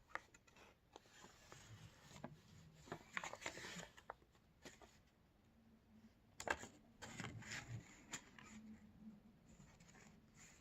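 Quiet handling noises: faint rustles and light taps of paper or card being handled, in two short clusters, one about three seconds in and one after about six seconds.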